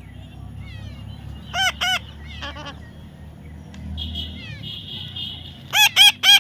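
Parrot giving short, shrill squawks: two about a second and a half in, two more soon after, a rapid chattering in the middle, then three loud squawks in quick succession near the end.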